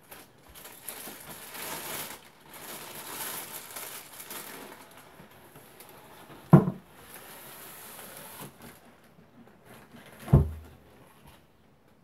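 Plastic wrapping rustling and crinkling as a tall speaker tower is slid out of its cardboard packing tube, with a sharp knock about six and a half seconds in and a heavier, deeper thump near the end.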